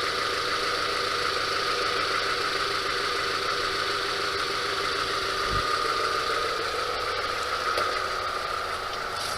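Car engine idling steadily and smoothly, having just started right up after sitting mostly unused. A brief low thump a little past halfway.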